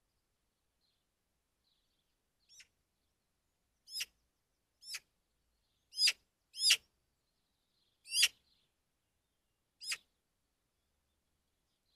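Eurasian magpie giving seven short, harsh single calls at irregular intervals, the loudest in the middle of the run.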